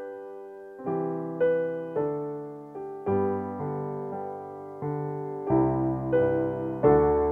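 Slow piano music: single notes and chords struck about every half second to second and left to ring out, with deeper bass notes joining about five and a half seconds in.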